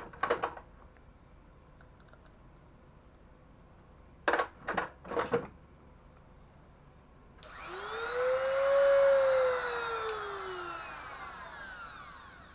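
Three sharp clicks, then a small high-speed rotary tool switched on: its whine climbs in pitch, then falls as the motor winds down.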